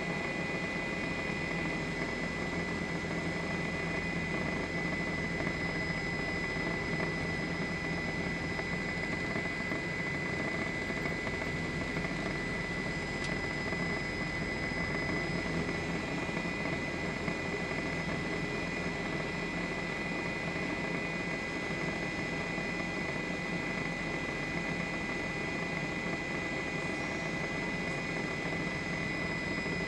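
Steady helicopter noise of turbine and rotors, with a constant high whine over it.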